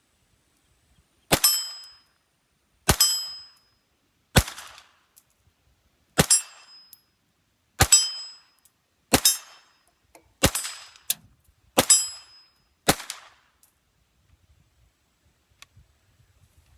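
H&K MP5 .22 LR semi-automatic pistol firing nine single shots at an unhurried pace, about one to two seconds apart, each crack followed by a short ringing tail.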